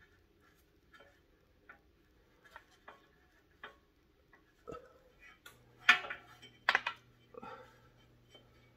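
Scattered light clicks and taps of a breather hose and its fittings being handled and pushed into place around a motorcycle engine's throttle body, with two louder clicks a little after halfway.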